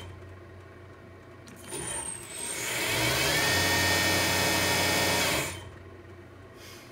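CNC-converted Grizzly G0704 mill spindle on a VFD, stopping quickly at the start. After a short noise about two seconds in, it spins up with a rising whine, runs steadily for about two seconds, then brakes to a fast stop: the VFD's braking resistor bringing the spindle down from high RPM.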